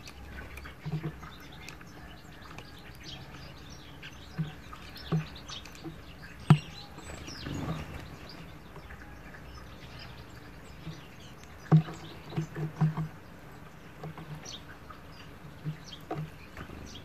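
European goldfinch pecking at sunflower seeds in a feeder bowl: irregular taps and seed-shell cracks, the sharpest a click about six and a half seconds in and a quick run of several around twelve to thirteen seconds, with faint small-bird chirps.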